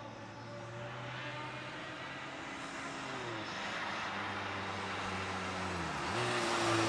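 Škoda Fabia race car's engine running under load as the car approaches, growing louder. The revs dip about halfway through and drop sharply near the end before climbing again.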